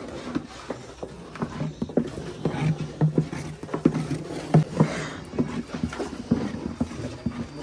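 Hand tools scraping and knocking against a wooden frame as thick, freshly cooked jaggery is spread and worked in it: irregular clicks and knocks throughout.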